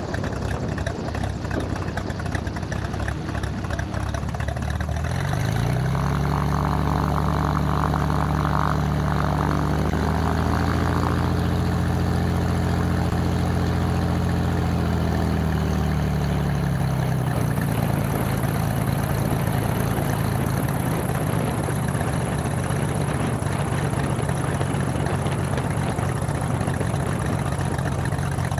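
Cessna 205's six-cylinder Continental IO-470 engine and propeller running at taxi power. The revs pick up about five seconds in, ease back a little past the middle, then settle to a steady low idle.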